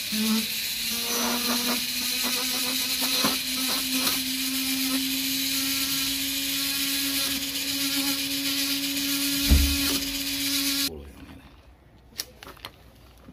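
Handheld rotary tool with a sanding drum running steadily, grinding a small metal ring piece: a constant motor whine under a grinding hiss, the pitch creeping slightly upward. The motor stops abruptly about eleven seconds in, leaving only a few faint clicks.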